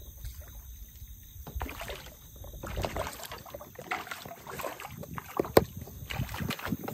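Scattered knocks and clicks of rod-and-reel handling in a canoe while a hooked crappie is played on a spinning rod, over a low steady rumble; the loudest is a sharp click about five and a half seconds in.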